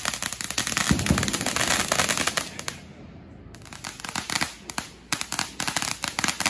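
Ground firework spraying sparks, crackling with a rapid stream of sharp pops. The crackle thins out and briefly drops away about halfway through, then picks up again in sparser pops.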